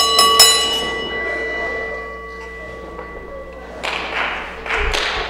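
Wrestling ring bell struck a few times in quick succession to start the match, its metallic tone ringing on and slowly fading. From about four seconds in, the crowd cheers in bursts.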